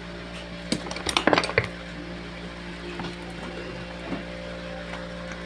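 Metal parts clinking and knocking together in a quick cluster of sharp hits about a second in, then a few light ticks, over a steady low hum.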